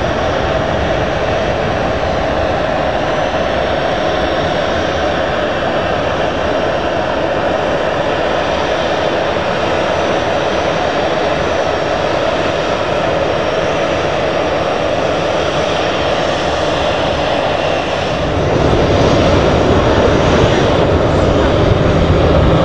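Jet engines of a taxiing Ryanair Boeing 737-800 running steadily, a continuous whine over a broad rush. About 18 seconds in the noise grows louder and deeper.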